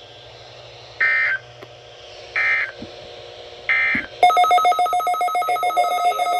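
Three short bursts of screeching EAS/SAME digital header tones from NOAA Weather Radio, each about half a second long and spaced about 1.3 seconds apart. About four seconds in, a loud, harsh, rapidly pulsing electronic alarm buzz starts and keeps going.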